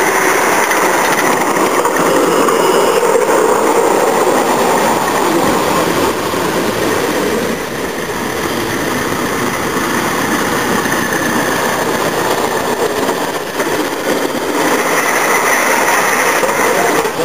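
Miniature live-steam locomotive running on a raised ground-level track, hauling a riding driver, with a steady rushing noise of steam exhaust and wheels on the rails.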